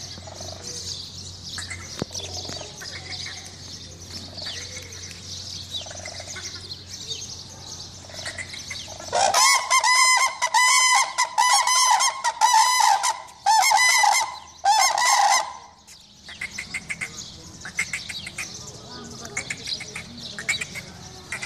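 Two cranes calling together with bills raised, a loud run of repeated trumpeting calls, the crane pair's unison call. It starts about nine seconds in and lasts about six seconds, over faint chirping of small birds.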